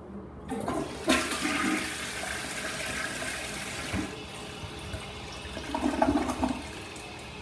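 American Standard Compact EL Space Saver two-piece tank toilet flushing: water rushes into the bowl about a second in and swirls steadily, a louder gurgle comes around six seconds in as the bowl drains, then a quieter steady hiss of water follows.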